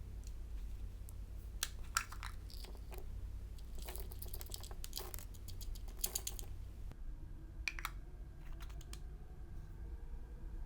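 Clear slime being worked by hand, giving several quick runs of small crackling clicks.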